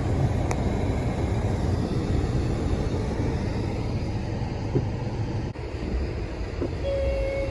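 Low, steady rumble of a car driving, heard from inside the cabin. There is a single click about half a second in and a short steady tone near the end.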